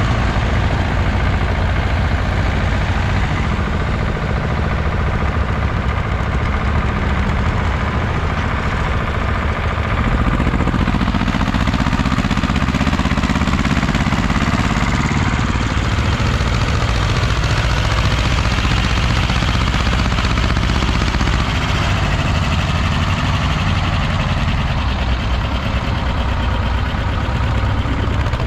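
Two-cylinder diesel engines of Ursus C-330 tractors running steadily under load while pulling ploughs through heavy soil. The sound gets a little louder and changes about ten seconds in, as one tractor passes close.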